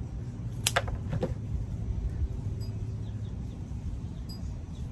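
Small scissors snipping succulent stems: two quick snips close together a little over half a second in, then a third about half a second later, over a low steady background rumble.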